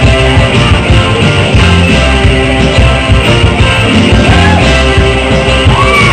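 Loud rock-and-roll karaoke song with guitar and a steady beat, a voice singing over it.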